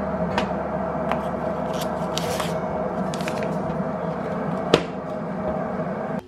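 Light clicks and a short rustle from a wooden tea box and tea sachets being handled, with one sharper click about three-quarters of the way through. Underneath is a steady hum from an electric kettle heating water.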